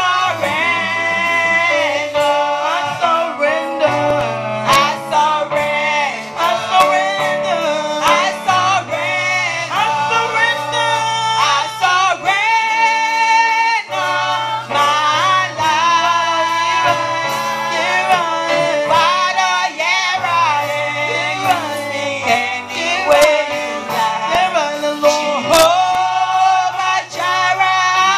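Praise-and-worship singing: female and male voices singing over instrumental accompaniment that holds long, steady bass notes.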